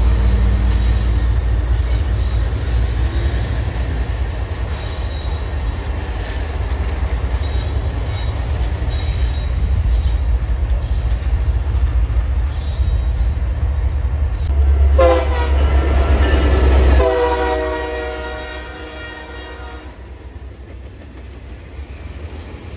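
Freight train with BNSF diesel locomotives rolling past: a steady low rumble with a thin high wheel squeal now and then. About 15 seconds in, a locomotive horn sounds twice, a short blast and then a longer one of about three seconds. Near the end there is a quieter rumble of freight cars rolling by.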